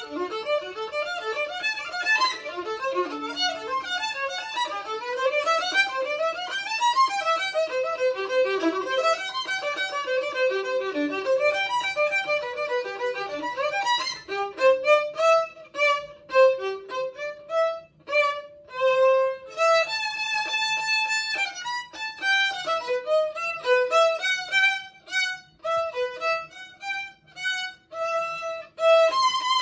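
Solo violin played with the bow: a fast stream of quick notes with rising scale runs, then, from about halfway, shorter detached notes broken by brief gaps, with a few held notes.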